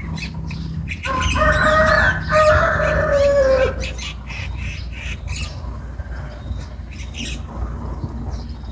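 A rooster crows once, a long pitched call of a little under three seconds with a brief break in the middle, while small birds chirp faintly.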